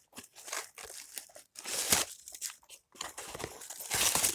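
Toy packaging crinkling and tearing as it is opened by hand, in irregular rustles with a louder burst about two seconds in and another near the end.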